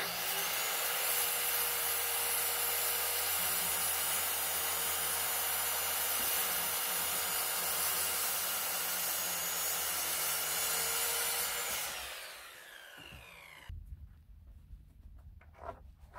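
Electric power saw running steadily through a cut in reclaimed wood deck board, then winding down with a falling whine after the trigger is released. A few faint knocks follow near the end.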